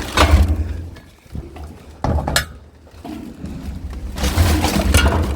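Pieces of scrap metal clinking and clattering as they are handled: a clatter at the start, a sharp clink about two seconds in, and a busier rattle building near the end, over a low rumble.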